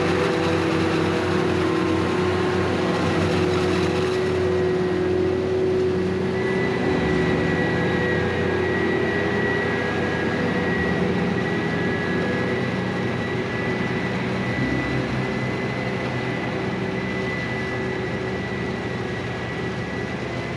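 New Holland FR550 self-propelled forage harvester running steadily at work in maize, a continuous machine drone with a high whine that comes in about six seconds in.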